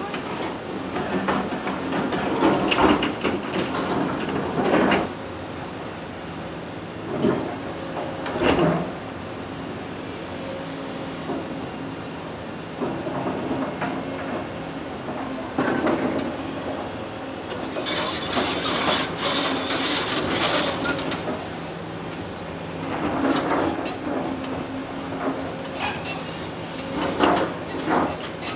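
Heavy diesel machinery running steadily, with repeated bursts of metallic clatter and scraping as track is broken up. A longer harsh, high screeching or hissing stretch comes about two-thirds of the way through.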